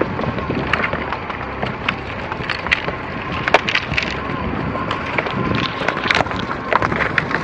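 Chery Tiggo's tyres rolling slowly over a corduroy road of logs and loose boards, the wood cracking and snapping under the wheels in irregular sharp cracks over a steady rumble.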